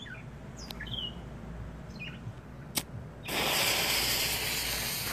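Black Cat Half Stick smoking cracker hissing loudly as it sprays sparks and smoke, starting suddenly about three seconds in, just after a sharp click.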